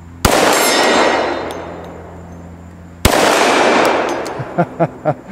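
Two pistol shots from a Glock 20 in 10mm, about three seconds apart, each followed by a long fading echo. The shots knock down two steel turkey silhouette targets.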